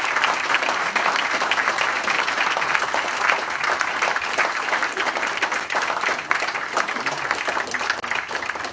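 An audience applauding, many hands clapping together, easing slightly near the end.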